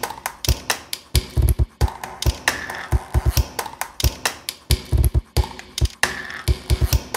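A rhythmic beat made from the sounds of a Hellmann's mayonnaise jar: fingers tapping its plastic lid and the lid knocked and twisted against the jar and countertop. Short clicks and deep thumps run in a pattern that repeats about every three and a half seconds.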